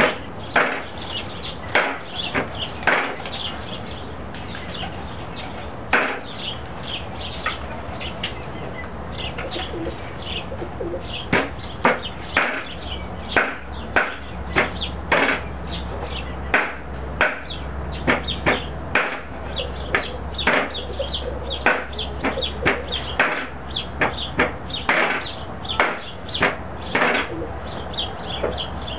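A large knife chopping squirrel meat and bone on a round wooden chopping block, in irregular sharp strokes. The strokes are sparse at first and come about one to two a second from about the middle on.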